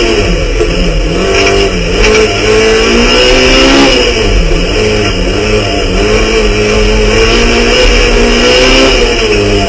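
Peugeot 106 Rally Cup race car's four-cylinder engine heard from inside the stripped cabin, driven hard and revving up and down, its pitch dropping and climbing again several times.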